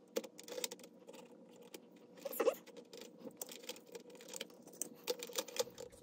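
Faint, scattered light clicks and taps of small hard parts being handled while an HO-scale model steam locomotive is worked on for oiling, with a slightly louder tap about halfway through.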